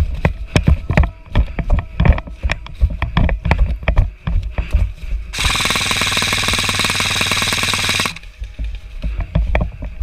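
An airsoft electric gun firing one sustained full-auto burst of nearly three seconds, starting about halfway through, a rapid even rattle. Before and after it come irregular knocks and thumps of movement.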